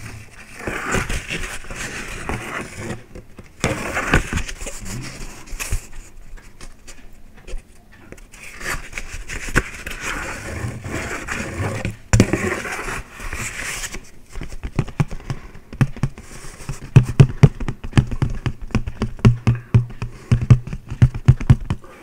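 Two paper plates rubbed and scraped against each other close to a microphone, in repeated sweeping strokes. About two-thirds of the way through it changes to fingertips tapping rapidly on a paper plate, the taps getting louder near the end.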